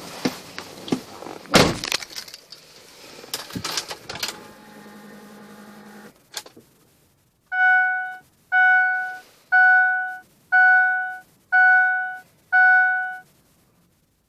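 Clicks and knocks of handling with one loud thump, a brief steady hum, then a Ford Expedition's dashboard warning chime sounding six times, about once a second. The ignition is switched on and the engine is not yet running.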